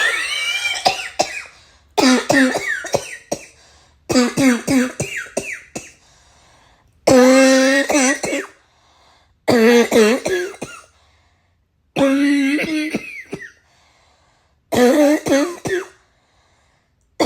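A person's harsh, barking cough coming in repeated fits: about seven bouts of several quick coughs each, with short pauses between them and another fit starting right at the end.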